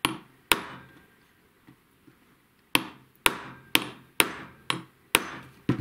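Small hammer tapping a punch to drive the gas tube pin deeper into an AR-15 gas block: metal-on-metal taps with a short ring. There are two taps, a pause of about two seconds, then seven steady taps at about two a second.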